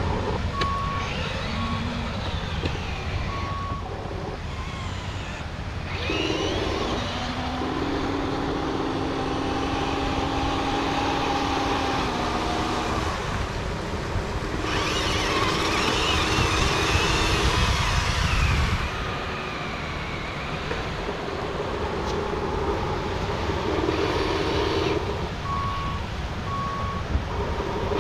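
Radio-controlled Volvo 6x6 articulated dump truck driving through sand: the whine of its electric drive motor and gears, changing in pitch from stretch to stretch, with a few short electronic reversing beeps near the start and again near the end.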